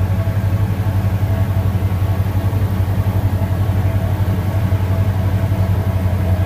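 Cessna 172P's four-cylinder Lycoming engine and propeller heard from inside the cabin in flight: a steady, loud drone with a rapid, even throb.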